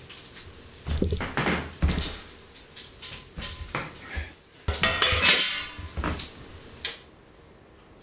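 Pots and dishes clattering as they are handled, in a string of separate knocks, with one ringing clang about five seconds in.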